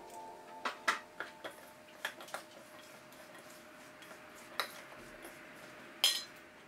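Cut cucumber and carrot being tossed by hand in a stainless steel mixing bowl, with irregular sharp clicks of food and fingers against the metal. About six seconds in, a metal spoon strikes the bowl with the loudest click.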